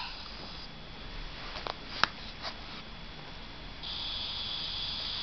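Quiet room tone with a steady high hiss, broken by a few short sharp clicks around the middle. The hiss and a thin whine grow louder about four seconds in.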